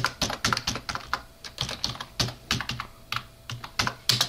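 Typing on a computer keyboard: quick runs of keystroke clicks, thick at first, then sparser, with a loud flurry of keys near the end.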